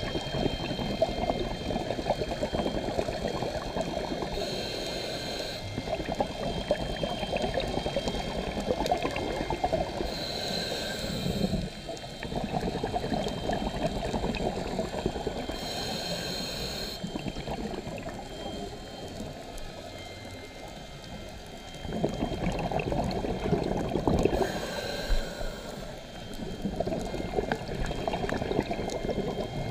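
Scuba breathing through a regulator, heard underwater from inside a camera housing. Exhaled air bubbles and gurgles steadily, and a short hiss comes back about every six seconds.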